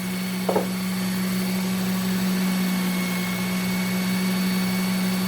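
Work Sharp Ken Onion Elite belt sharpener running steadily with a compound-dressed belt: a steady motor hum with a high whine over it.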